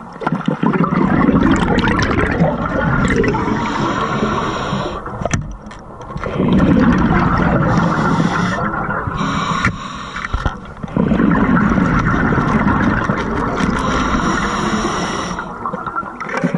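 Scuba diver's open-circuit regulator breathing underwater: three long rushes of exhaled bubbles, each followed by a short pause.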